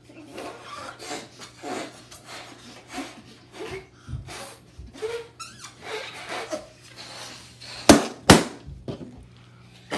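Two latex balloons popping, two sharp cracks about half a second apart near the end. Before them, breathy puffs of air being blown into balloons, with rubber rubbing and squeaking.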